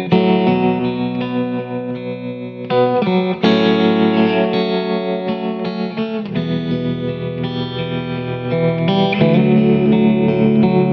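Background music led by guitar, with chords changing every second or two.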